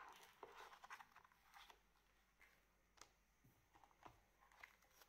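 Faint rustling and soft taps of a gloved hand turning the stiff pages of a 4K Blu-ray DigiBook, with a sharp tick about three seconds in and another about a second later.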